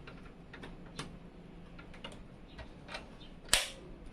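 Small scattered clicks and taps of PC case parts being handled, with one loud sharp snap about three and a half seconds in.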